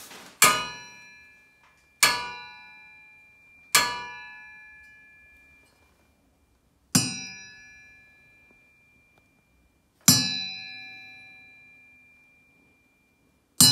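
A metal washing-machine drum pulley struck six times, a few seconds apart, each strike ringing on like a bell with several clear tones before fading.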